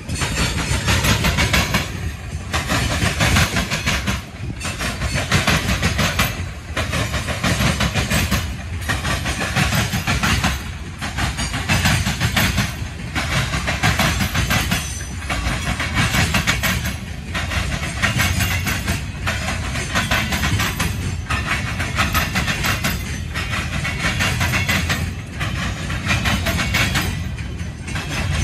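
Freight cars of a CSX manifest train rolling past, steel wheels on the rails: a steady rolling noise with a low rumble and a hiss that dips briefly about every two seconds.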